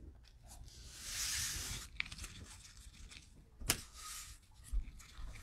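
Handling of trading cards and a plastic cello pack wrapper: a papery, crinkly rustle lasting about a second, then a single sharp click a little before four seconds in.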